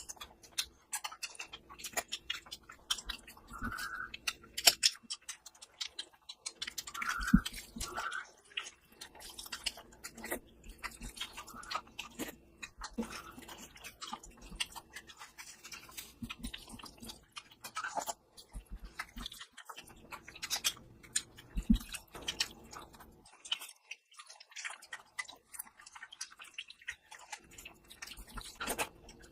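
Close-miked chewing of a person eating mutton curry with rice: a steady, irregular run of short mouth clicks and smacks.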